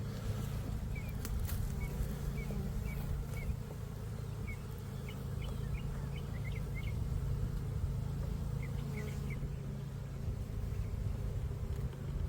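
Swarm of honeybees buzzing around an opened swarm trap, a steady low hum. Small birds chirp briefly now and then over it.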